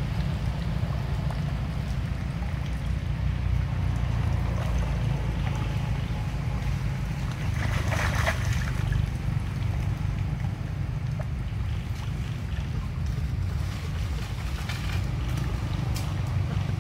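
Steady low rumble of wind buffeting the microphone, with a brief higher hiss about eight seconds in.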